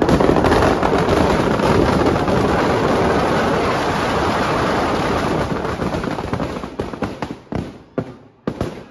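Firecrackers packed inside a burning Ravan effigy going off in a dense, continuous barrage of bangs and crackles, which thins to scattered single bangs over the last couple of seconds.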